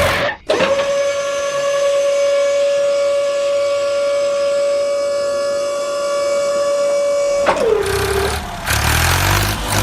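Vehicle horn sounding one long steady note for about seven seconds, then sagging in pitch as it stops. Engine rumble follows near the end.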